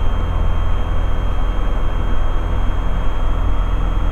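Robin DR400/180's four-cylinder Lycoming engine and propeller running at full takeoff power, a steady low drone as heard inside the cockpit.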